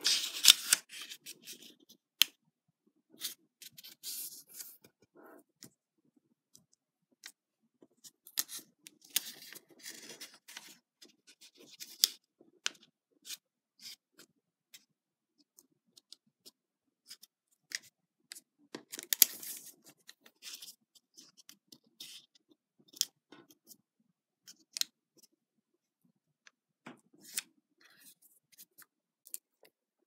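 A small sheet of origami paper being handled and folded by hand: irregular crinkling rustles and sharp creasing clicks as fingers press folds flat, busiest near the start and again about two-thirds through.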